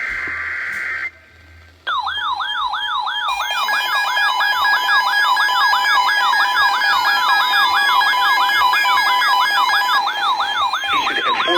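The last burst of an EAS SAME digital header, a steady two-pitch data screech lasting about a second. After a short gap, the Emergency Alert System attention tone starts about two seconds in, a steady two-tone signal overlaid with a fast siren-like yelp that sweeps up and down about three times a second.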